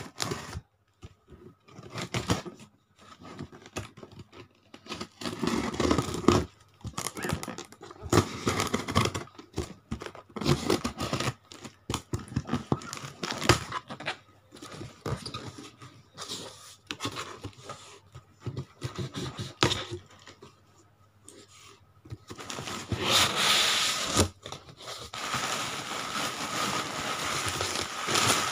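A cardboard shipping box being opened by hand: packing tape tearing, cardboard flaps scraping, and plastic wrapping crinkling in irregular bursts. It becomes a more continuous rustle and crinkle near the end.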